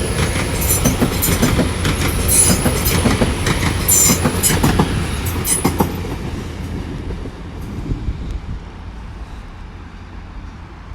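Class 802 IET train running past over the rails, with wheels clicking over rail joints and a steady high squeal from the wheels. It fades away over the last few seconds as the train moves off.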